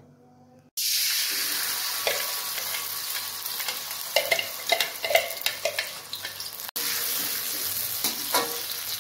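Ground spice paste of chili, shallot, garlic and candlenut sizzling as it fries in hot oil in an aluminium wok. The sizzle starts suddenly about a second in and holds steady, with clinks and scrapes of a metal spatula and the glass against the wok.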